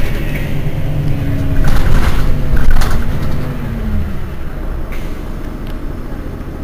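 Mercedes-Benz Citaro city bus running with a steady diesel rumble. Near the middle a whine rises and falls, and a few sharp knocks come about two and three seconds in. The sound eases off in the second half.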